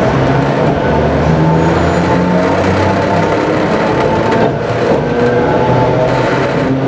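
Narrow-gauge electric railcar with nose-suspended traction motors running along the track, heard from inside the cab: a steady motor and gear whine over the rumble of wheels on rail.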